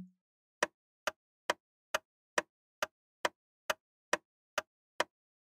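Countdown ticking sound effect: evenly spaced sharp ticks, a little over two a second, with silence between them, marking time for the answer.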